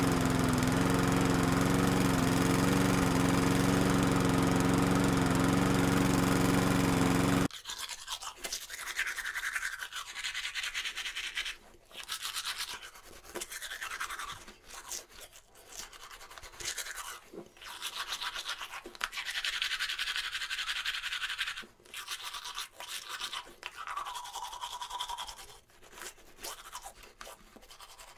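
A bench power tool's motor runs steadily with a constant hum while a small spinning bit shapes a wooden piece, then cuts off abruptly about seven seconds in. After that, irregular scratchy rubbing strokes with short pauses: wood pieces being sanded by hand.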